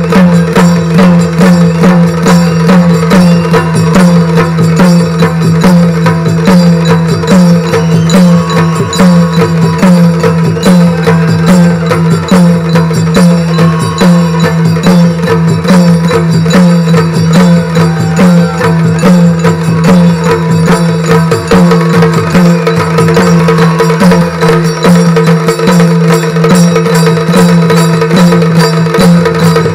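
Yakshagana percussion: several chande drums beaten with sticks, together with the maddale, playing a fast, unbroken rhythm for a dance, over a steady drone.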